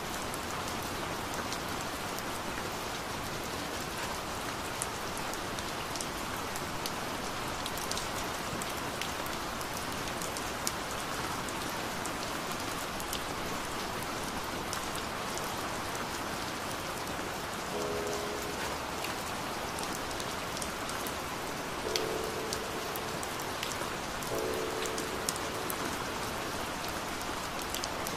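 Steady rain falling, with scattered sharp taps of individual drops. A few faint soft held notes come in during the last third.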